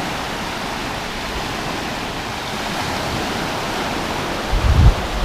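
Steady wash of low surf on the beach at rising tide. Wind buffets the microphone with low rumbles near the end.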